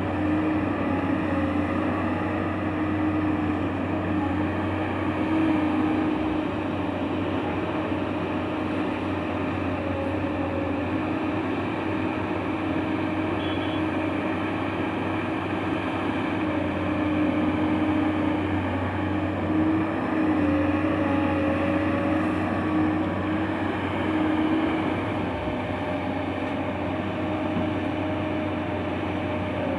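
Excavator engine running steadily under work, with a slight wavering hum that rises and falls a little in pitch.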